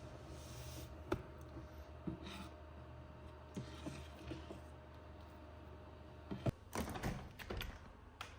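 Scattered light clicks and knocks, with a busier run of sharper knocks and rustling about six and a half to seven and a half seconds in, over a low steady hum.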